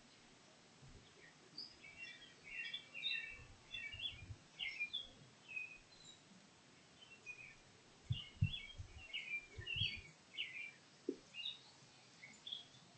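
Songbirds chirping in short, scattered calls, with a few soft low thuds about eight to ten seconds in.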